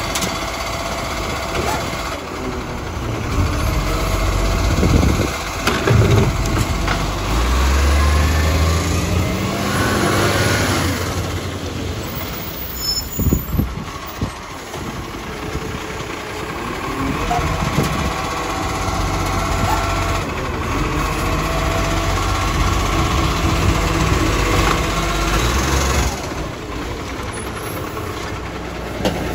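Side-loading garbage truck on an Iveco Acco chassis: its diesel engine runs throughout while the lifting arm tips and sets down a wheelie bin with a few sharp clunks. Partway through, the engine revs up as the truck pulls forward to the next bins.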